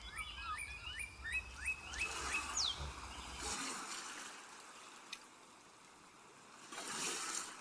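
Faint birdsong: a quick run of rising and falling chirps and one rising whistle over the first two and a half seconds, above a low rumble that cuts off about three and a half seconds in. After that come two soft washes of ocean surf.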